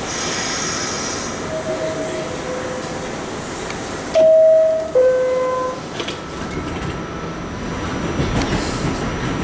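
Door-closing chime of a 1975 R46 subway car: a falling two-tone ding-dong, heard faintly once and then loudly, followed by a knock as the doors shut. The car's motors and wheels then start to rumble louder as the train begins to pull out.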